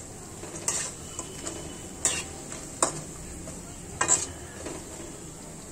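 Nimki frying slowly in oil, with a steady sizzle as the water in the dough steams off. A utensil knocks and scrapes in the pan about four times while stirring them.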